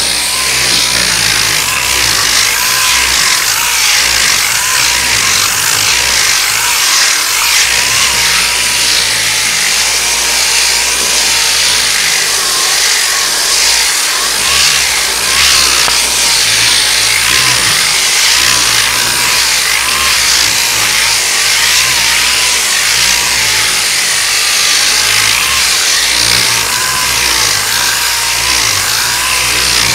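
Power sander running steadily on body filler, a dense sanding hiss over a motor whine that wavers slightly in pitch.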